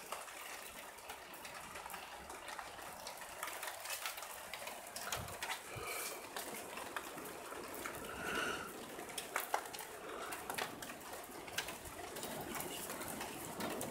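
Rain falling during a thunderstorm: a steady hiss with scattered sharp drips and taps. A few faint short high tones come about six and eight and a half seconds in.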